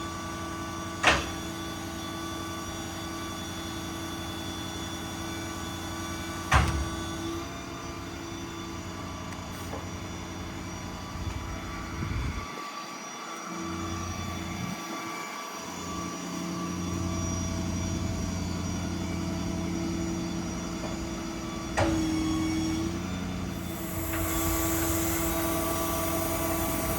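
IMT 7500 service-truck crane working on PTO-driven hydraulics, with the 6.7 Power Stroke diesel held at raised idle. A steady machine hum carries through, with a few sharp clunks as functions start and stop: near the start, about a quarter of the way in, and again late on. The hum grows louder past the middle, and a hiss joins near the end.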